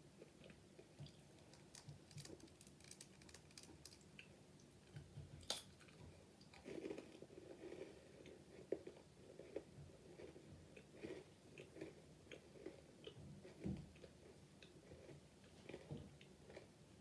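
Quiet close-up chewing of a chocolate-covered pretzel: soft crunches and small crisp crackles and mouth clicks throughout, with one sharp crunch about five and a half seconds in.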